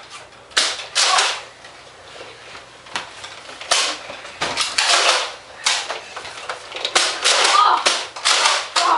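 Nerf foam-dart blasters firing in a fight: a string of sharp snaps and thuds at irregular intervals, bunched most thickly in the last couple of seconds.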